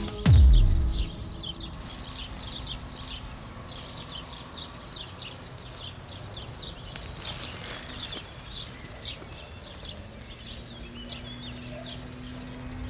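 Small birds chirping repeatedly over a quiet garden ambience. At the very start a deep boom falls in pitch and dies away within about a second.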